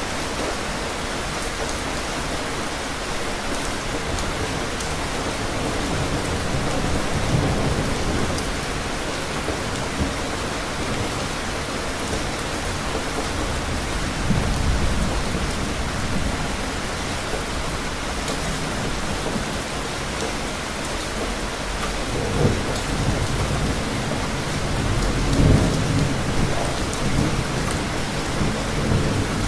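Steady rain during a thunderstorm, with several low rumbles of thunder that swell and fade. The loudest rumble comes a few seconds before the end.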